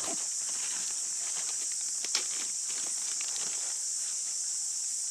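Rustling and soft clicks of gear being pulled from a backpack and a dog moving on dry leaf litter, with one sharp click about two seconds in, over a steady high-pitched insect chorus.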